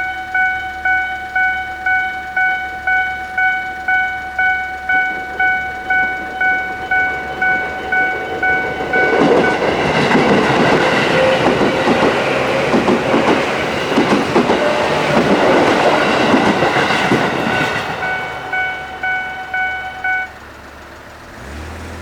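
Japanese railway level-crossing electronic warning bell ringing in an even pulse of about one and a half strokes a second, a calm-sounding alarm. About nine seconds in, a train passes through the crossing for roughly nine seconds, its wheels clattering over the rail joints under the bell. The bell stops near the end, and a road vehicle's engine hum comes in.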